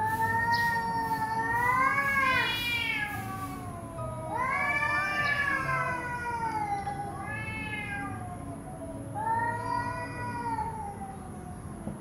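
Angry cats yowling: several long drawn-out wails that rise and fall in pitch, the threat caterwaul of cats facing off.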